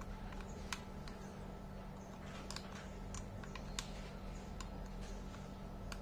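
Scattered small plastic clicks and taps as fingers handle a plastic charger-socket voice recorder, over a faint steady low hum.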